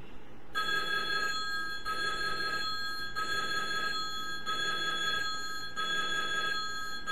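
Telephone ringing: a repeating electronic ring starting about half a second in, about five rings roughly 1.3 seconds apart.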